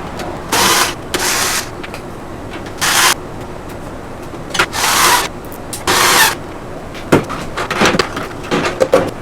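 A series of short scraping or rustling noises, each under half a second and spread irregularly, with a few sharp clicks and knocks near the end.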